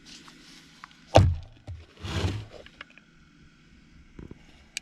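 A loud knock about a second in, then a brief rustle, with a few small clicks and a soft thump later, as a cup of precooked minute rice is emptied, the rice sliding out in one solid block.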